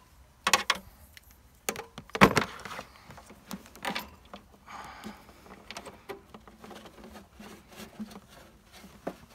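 A plasma cutter's ground-clamp cable plug being handled and pushed into its quick-connect socket on the machine's front: a string of sharp knocks and clicks, the loudest a little over two seconds in, followed by brief rustling and softer taps.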